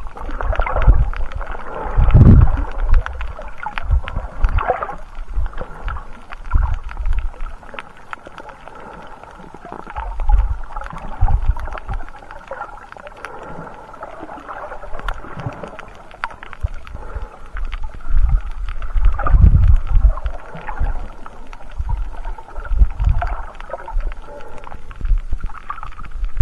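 Muffled underwater water noise heard through a camera's waterproof housing, with irregular low surges and thuds from the snorkeler moving through the water.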